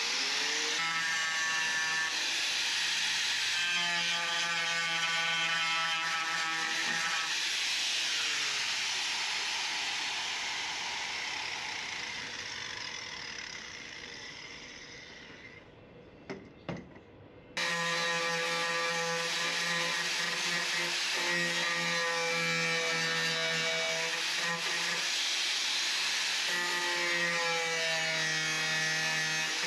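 Angle grinder cutting rusted body steel out of a 1968 Mercury Cougar's rear window corner. Its whine dips in pitch as the disc bites into the metal. About halfway through it spins down to quiet, a couple of clicks follow, then it starts up abruptly and cuts again.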